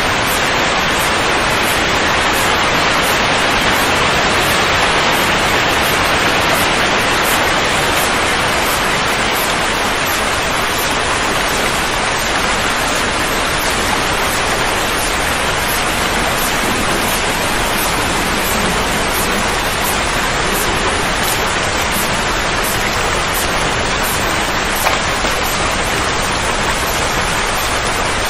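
Steady, unbroken rushing noise like heavy rain, loud and even throughout, played as a soothing sound for a colicky baby.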